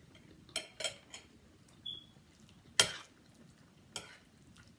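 A spoon and fork clinking and scraping against a plate during eating: several separate sharp clicks, the loudest a little before three seconds in.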